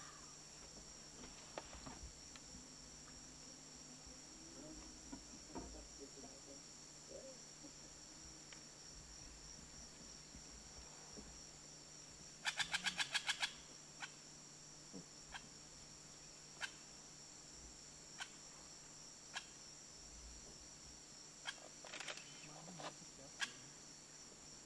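Steady high insect chorus with calls from an oropendola colony at its hanging nests. About halfway there is a rapid run of about nine loud pulses lasting about a second, followed by scattered sharp single calls.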